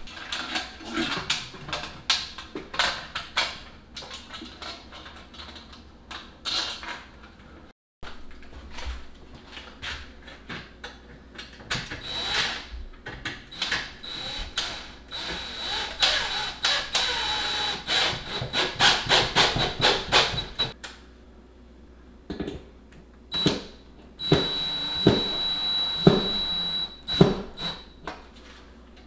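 A DeWalt 20V cordless impact driver runs in short spurts, its motor giving a steady high whine, as it drives toggle bolts through a steel microwave mounting plate into the wall. Many short knocks and clicks of the metal plate and hardware being handled come in between.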